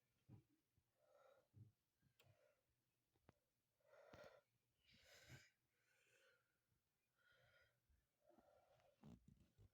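Near silence, with only faint, indistinct sounds and a few soft clicks.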